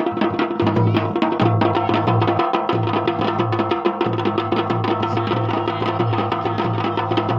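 Dhol and damau drums played in a fast, steady rhythm of dense strokes, over a steady ringing tone.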